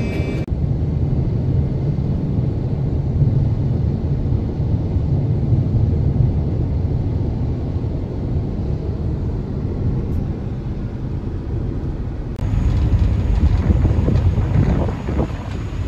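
Steady low rumble of a car driving along a highway, heard from inside the cabin. About twelve seconds in it changes abruptly to louder, gusty wind on the microphone on the open deck of a moving ferry.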